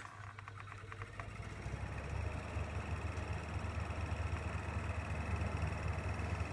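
1995 Hitachi UL-20GS ventilation fan starting up, a few ticks in the first second as it gets going, then spinning up over about two seconds to a steady low motor hum with a thin high whine on top.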